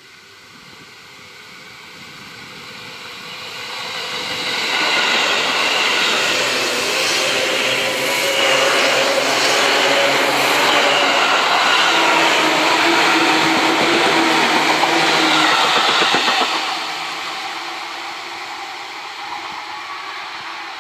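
Seibu 2000 series electric multiple unit approaching and passing close by, its wheels and motors running on the rails. The sound builds over the first few seconds, stays loud for about eleven seconds with a steady whine in it, and fades as the train moves away.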